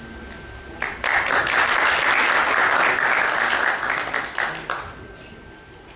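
Audience applauding: clapping starts abruptly about a second in, holds for about four seconds, then dies away.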